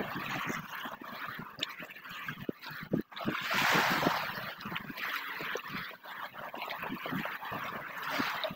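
Water splashing and gurgling in many small, irregular splashes. A louder rush of water swells up about three seconds in.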